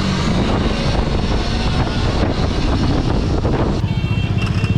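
Wind buffeting the microphone on a moving bike, with vehicle noise underneath. About four seconds in the wind drops and a steady high whine comes through.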